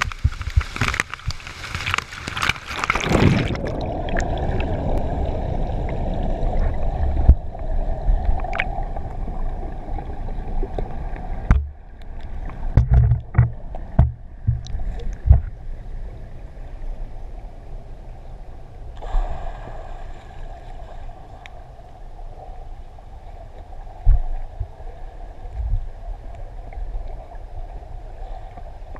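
Waterfall water pouring and splashing over the camera at the surface for about the first three seconds, then the muffled rushing of water heard from underwater, with scattered knocks and thumps.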